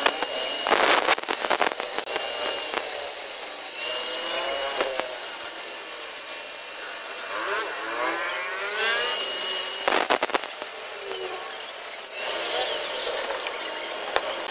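Angle grinder cutting into the axle bearing lock collar on a Toyota Tamaraw FX rear axle shaft, to get the old bearing off. The grinder's whine rises and falls as the disc bites and eases. Near the end it stops and a few sharp metal taps follow.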